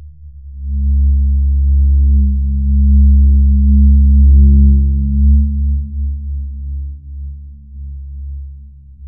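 Deep, low electronic drone of steady tones that swells in under a second in and fades after about six seconds.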